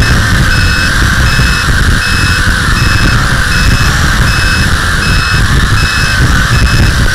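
WLToys V262 quadcopter's four motors and propellers whining in flight, recorded on board, with wind rumbling on the microphone. A short electronic beep repeats about every three-quarters of a second.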